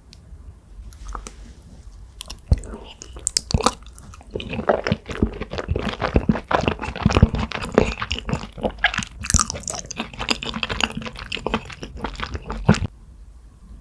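Close-miked mouth sounds of someone chewing a big bite of lasagna: many quick, sharp clicks, sparse at first, then thick from about two and a half seconds in, stopping shortly before the end.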